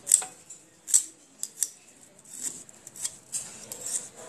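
Hand vegetable peeler scraping the skin off a daikon radish in short, quick strokes, roughly two a second and unevenly spaced.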